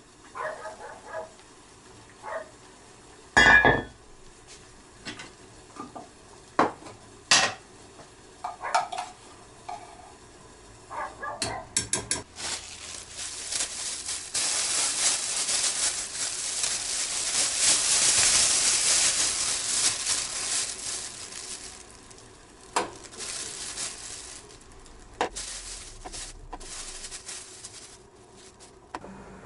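Kitchen handling sounds: scattered clinks and knocks of dishes and utensils on the counter, then about ten seconds of loud crinkling from a plastic bag being handled, swelling and fading, with a few more knocks after it.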